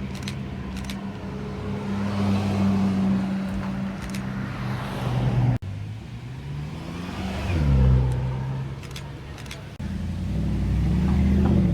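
Supercar engine running steadily, with a brief rev and pitch sweep around the middle; the sound breaks off abruptly twice.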